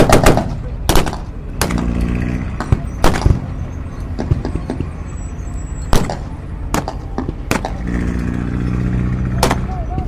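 Battle reenactment ambience: scattered gunshots and bangs, about eight over ten seconds, over a steady low rumble. An engine runs at a steady pitch underneath, plainest about two seconds in and again near the end.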